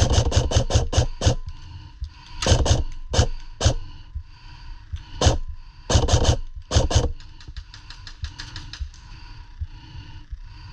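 Airsoft electric guns firing in quick bursts of sharp cracks, about eight shots a second, mixed with scattered louder knocks. A fainter fast burst comes near the end.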